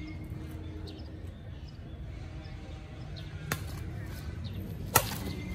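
Badminton racket strings hitting a shuttlecock twice in a rally, two sharp pocks about a second and a half apart, the second the louder, over a low steady background rumble.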